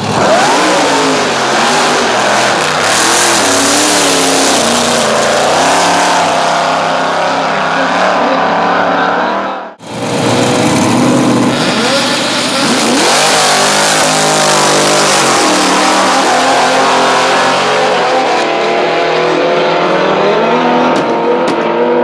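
Drag-racing car engines, including a supercharged drag car, revving hard and running at full throttle, the pitch climbing and falling. About ten seconds in, the sound drops out abruptly and picks up again with another car's engine.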